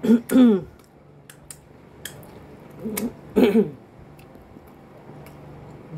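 Two short hummed vocal sounds of a person eating, one at the start and one about three seconds in, each falling in pitch. A few small sharp clicks of eating fall between them.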